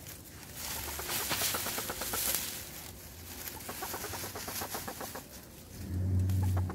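A hen clucking softly while dry oak leaves rustle and crackle under her as she shifts and pecks in a leaf-filled box. The rustling is loudest in the first half, and a brief low hum comes in near the end.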